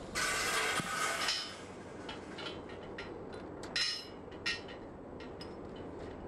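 Steel chain sling and its hooks being handled: a rattling jingle of chain links for about a second and a half, then two sharp metal clinks a little over half a second apart as the chain is worked at the master link, over a steady background hiss.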